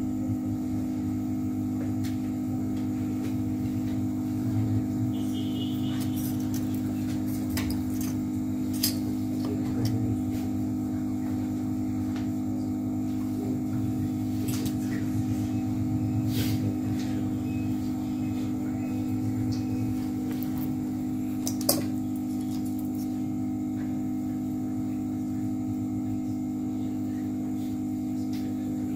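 Hot air rework gun blowing steadily, a constant hum, while it heats the backlight IC off a phone's logic board. A few light clicks are heard now and then.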